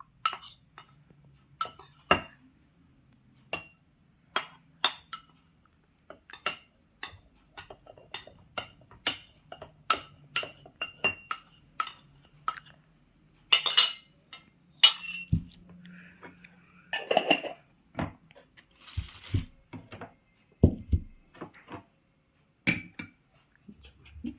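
A metal spoon repeatedly clinking and tapping against a jar while a ground herbal mixture is spooned into it and mixed, the clinks ringing briefly. A few duller knocks and a short rustle come after the middle.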